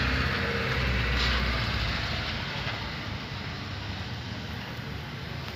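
Audi Q5 running on the lift, heard from underneath beside its S tronic gearbox: a steady mechanical running noise, with a low hum that drops away about two seconds in.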